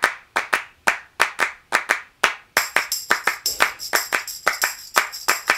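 Music track opening with a rhythmic hand-clap pattern. About two and a half seconds in, a jingling tambourine-like layer joins the claps.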